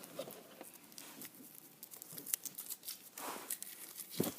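Cardboard and plastic toy packaging being handled and pulled apart: light crinkling and rustling with scattered small clicks, a short louder rustle about three seconds in, and a sharp click near the end.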